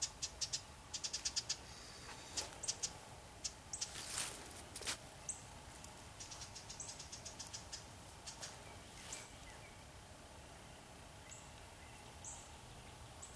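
A small bird, which the observer takes for some kind of wren, scolding with rapid runs of sharp, high chip notes, about ten a second, strongest in the first few seconds and fading later. It is the alarm chatter the observer reads as a warning that an owl is about. A few single short rising notes come near the end.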